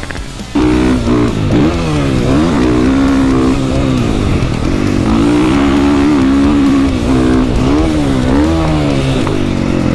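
Dirt bike engine run hard around a motocross track, its pitch climbing and falling again and again as the throttle is opened and chopped through jumps and turns. It comes in loud about half a second in.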